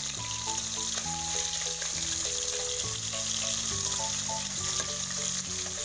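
Koi fish (climbing perch) frying in hot oil in a kadai: a steady sizzle, with the fish being turned to fry the other side. Soft background music with held notes plays throughout.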